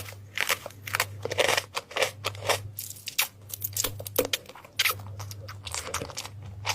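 Irregular crisp crunching and crackling, several sharp strokes a second, over a steady low hum.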